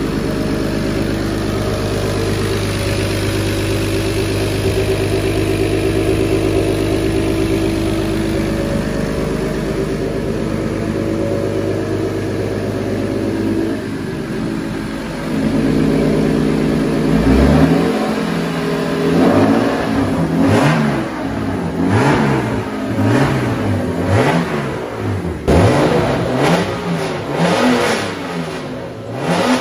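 Freshly built turbocharged BMW M50/M52 straight-six running on its first start, at a steady fast idle at first and no longer misfiring. From a bit past halfway it is revved up and let fall again and again, about once a second.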